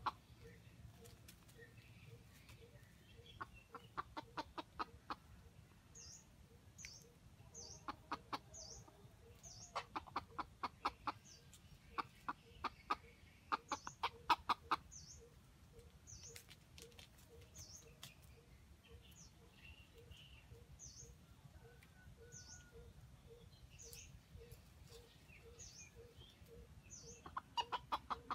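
Junglefowl clucking in short runs of rapid notes, about half a dozen runs a few seconds apart. A small high chirp repeats about twice a second behind it.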